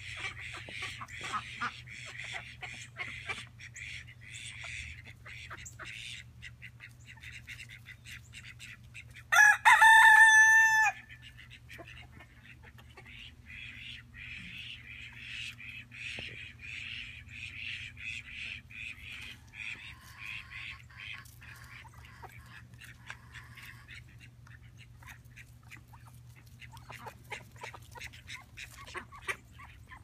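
A rooster crows once, about ten seconds in, a loud call of about a second and a half. Around it runs a steady high chirring with scattered small clicks.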